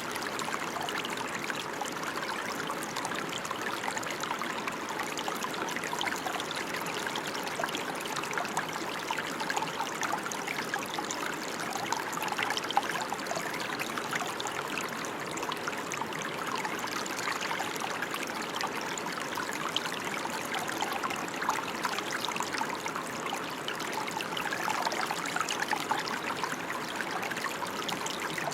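Steady rain, a dense even hiss of many small drops with no change in intensity.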